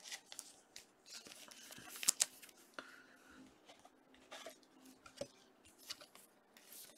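Trading cards and plastic card sleeves and holders being handled, giving soft scraping and rustling with scattered light clicks, the sharpest a couple of seconds in.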